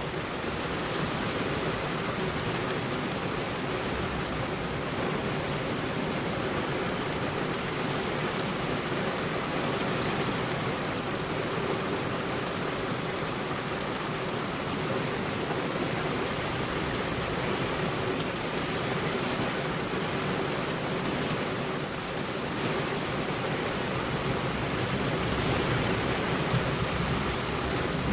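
Heavy rain falling steadily on a road, an even hiss that grows a little louder near the end.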